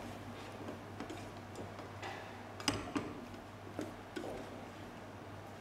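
Wooden spatula stirring vegetables in a stainless steel saucepan: quiet, irregular scrapes and knocks of the spatula against the pot.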